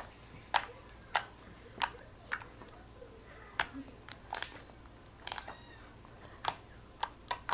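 Slime being squeezed and kneaded by hand, giving off a string of short, sharp pops and clicks at irregular intervals, roughly one or two a second.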